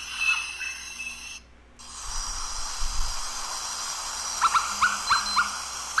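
Field recording of a Short-tailed Nighthawk calling: a quick series of about six short, rising notes about four and a half seconds in, over a steady high shrill of night insects. The recording breaks off briefly about a second and a half in.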